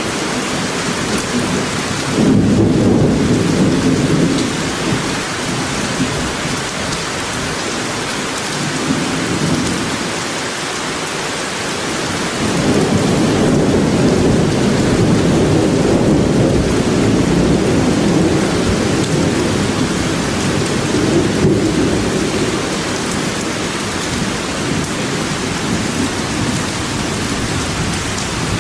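Steady rain falling in a forest, with low rolling thunder that swells about two seconds in and again from about twelve seconds in, lasting several seconds each time.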